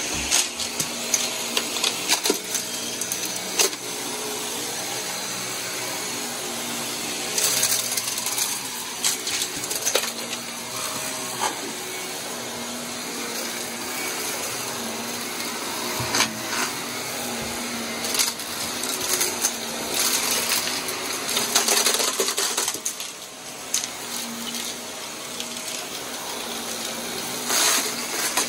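Blue bagless upright vacuum cleaner running on carpet, its motor humming steadily, with frequent sharp clicks and rattles of debris being picked up. The sound drops for a moment about two-thirds of the way in.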